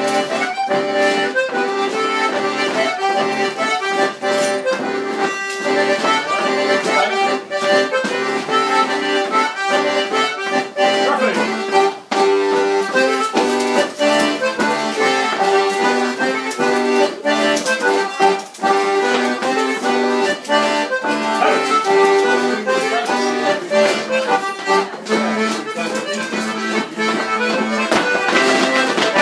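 Accordion playing a lively traditional dance tune, with frequent sharp clicks and knocks from the rapper sword dancers' feet and swords running through it.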